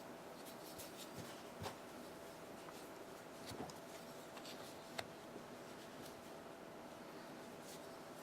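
Faint rubbing and scattered light clicks of small knife parts being handled and cleaned on a table, with a few slightly louder taps about one and a half, three and a half and five seconds in.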